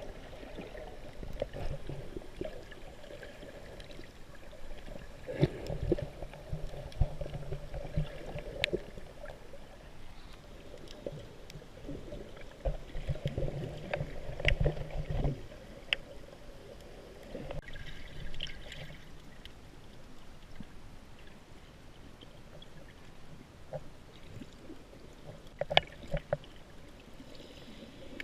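Water sloshing and gurgling in irregular surges, with scattered sharp clicks.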